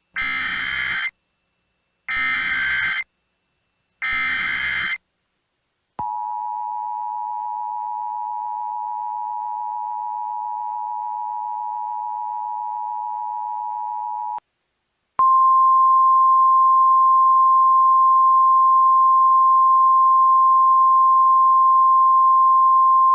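Emergency Alert System tones: three one-second bursts of digital header data about a second apart, then the steady two-tone attention signal for about eight seconds. After a short gap comes a louder single steady tone, the weather-radio warning alarm, which runs on past the end.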